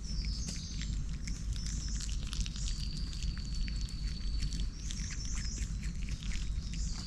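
Dry leaf litter crackling and rustling as lemurs move and forage over the forest floor, with high chirping bird calls and one held high note lasting about two seconds in the middle, over a steady low rumble.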